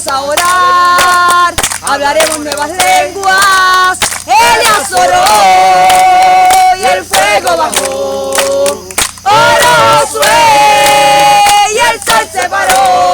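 A group of people singing loudly together, with long held notes.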